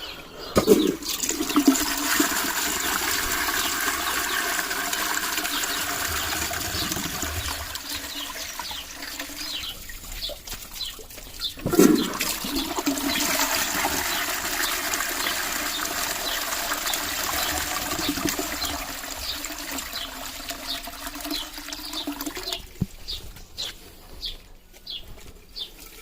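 An Ideal Standard Ropetwist close-coupled toilet with a siphon cistern, flushed twice: each flush starts suddenly and is followed by about ten seconds of rushing water through the pan.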